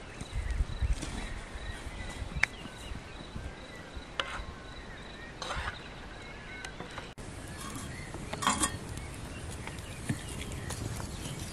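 Outdoor rural ambience: birds chirping over a faint steady high tone, with scattered clicks and knocks from firewood and a pan being handled over an open wood fire.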